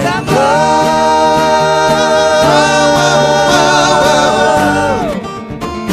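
Several male voices singing one long held chord in harmony over acoustic guitars and keyboard. The chord comes in about a quarter second in, wavers slightly, and ends about five seconds in.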